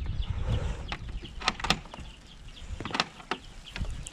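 Wooden nest-box door on a chicken coop being unlatched and swung down open: a few sharp clicks and knocks of the metal latch and the wooden panel, over a low rumble of handling.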